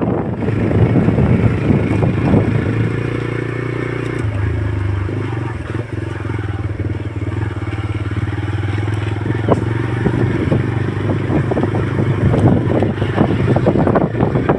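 An engine running steadily with a low hum, its tone shifting slightly about four seconds in, over wind noise.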